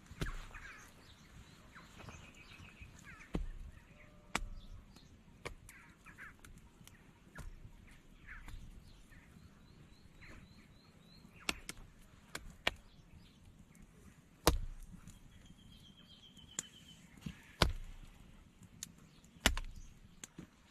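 Irregular sharp blows from a hand tool, about ten spread unevenly, the loudest about two-thirds of the way in. Birds chirp and trill between the blows.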